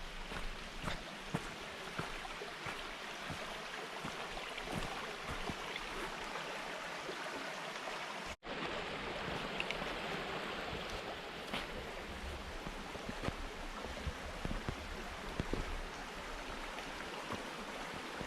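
Steady rushing of water in a mountain stream, with a few faint clicks. The sound cuts out for an instant about eight seconds in.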